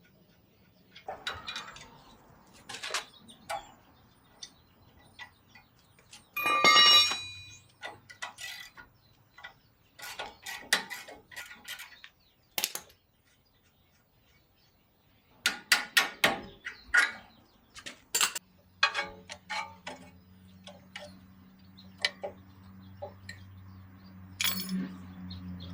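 Hand tools at work on a shock absorber's mounting: scattered metal clicks and clinks, with one loud ringing metal clank about seven seconds in and a quick run of clicks later on. A low steady hum joins in for the last several seconds.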